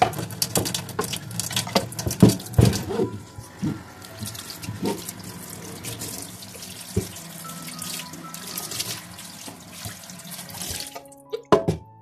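Tap water running onto a wooden cutting board held over a stainless steel sink, rinsing it, with frequent sharp knocks of the board against the sink in the first few seconds. The water cuts off about a second before the end, followed by a sharp knock.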